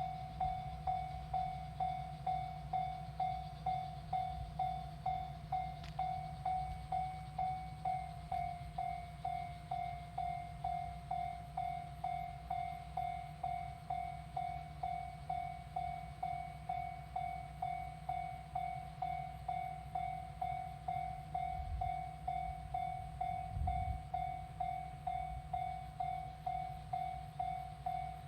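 Japanese railway level-crossing warning bell ringing, a single repeated tone at about two strikes a second, over a low steady rumble.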